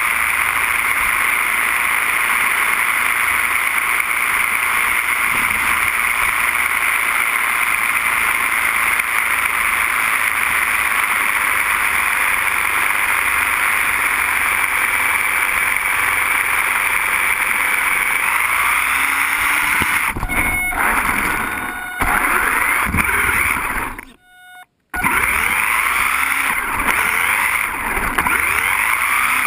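Small RC car driving, heard through a GoPro mounted on top of it: a steady, loud rushing noise from its motor and wheels on the ground. The sound turns more uneven about two-thirds of the way through and cuts out briefly for about a second.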